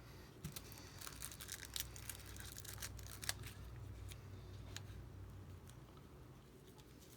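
Faint, scattered small clicks and light scraping of small parts and tools being handled during an iPad home-button fitting, over a low steady hum.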